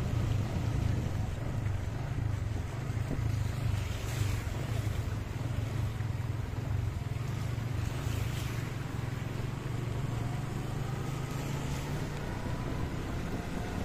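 Motorcycle engine running steadily at low road speed, with tyre hiss on a wet road. Two brief swishes about four and eight seconds in.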